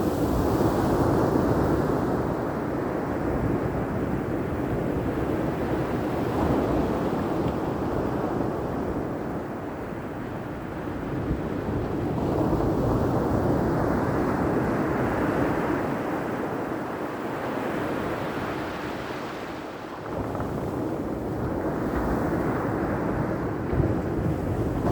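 Ocean surf: waves washing in, the sound swelling and easing every several seconds over a low rumble.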